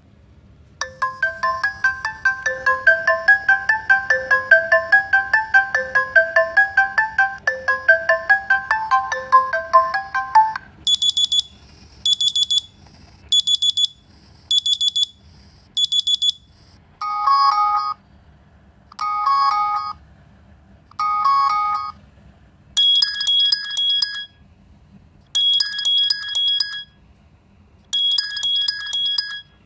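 Phone ringtone and alarm tones played one after another. A looping melodic tune runs for about ten seconds, then comes a short electronic beep repeated five times at even spacing, then three bell-like ringing bursts about two seconds apart, then a chiming alarm pattern repeated three times.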